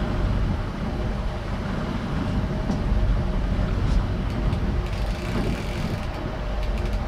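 Steady drone of a trolling boat's engine under way, mixed with low wind and water noise.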